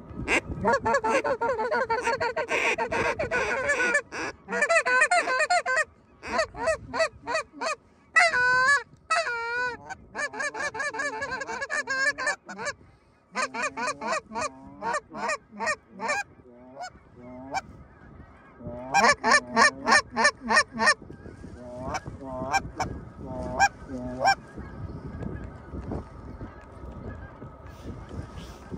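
Geese honking in rapid, loud runs of honks and clucks, several bursts broken by short pauses, with the calling thinning out over the last few seconds.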